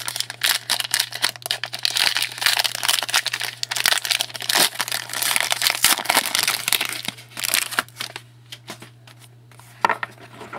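Foil wrapper of a trading-card pack crinkling and crackling as it is torn open and peeled off the cards, dense for about seven seconds, then quieter for a couple of seconds before a little more crinkling near the end.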